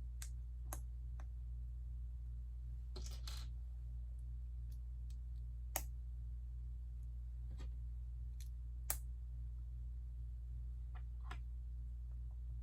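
Lego bricks being handled and snapped together: scattered sharp clicks and taps, with a short rustle about three seconds in and two louder clicks about six and nine seconds in, over a steady low hum.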